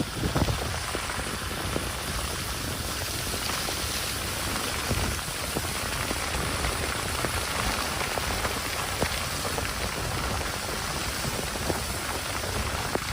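Steady rain pattering on a surface: a dense, even hiss with many fine ticks of drops striking.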